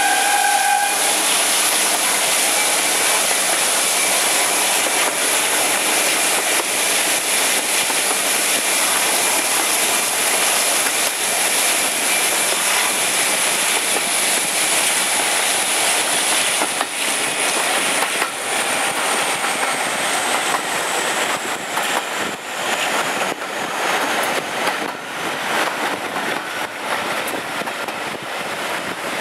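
Class 52 'Western' diesel-hydraulic locomotive D1010, with twin Maybach engines, running at the head of a train, heard from an open carriage window among rushing wheel and rail noise. A high whine slowly drops in pitch about two-thirds of the way through, and the sound grows slightly quieter.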